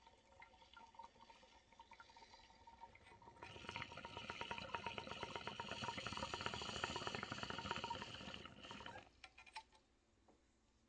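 Water in a glass beaker bong bubbling as smoke is drawn through it. It starts as faint, sparse bubbling, then from about three and a half seconds in turns into a loud, rapid gurgle that stops suddenly at about nine seconds.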